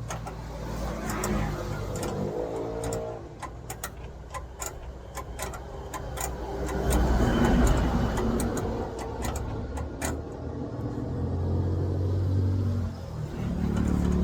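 Motor vehicle engine running and changing speed, with many sharp clicks and clinks scattered over it.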